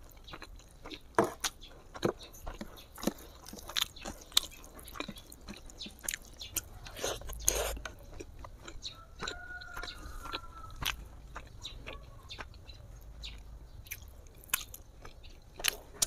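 Close-miked eating sounds: chewing and biting, with many sharp, wet mouth clicks and smacks scattered throughout.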